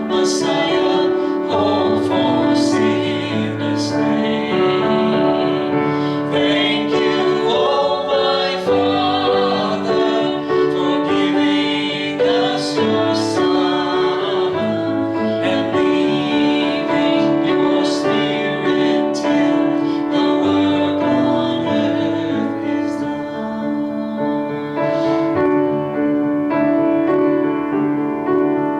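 Music: a voice singing with piano accompaniment.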